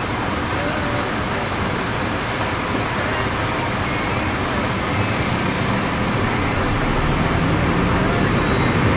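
Scania P310 fire truck's diesel engine running and road noise heard from inside the cab as it drives through traffic, getting a little louder toward the end.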